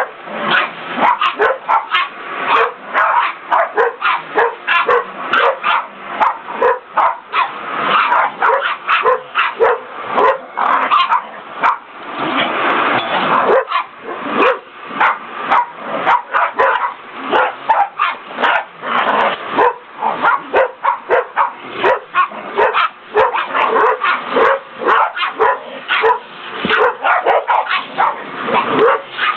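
Several small terriers barking and yapping at a vacuum cleaner, rapid overlapping barks with no let-up.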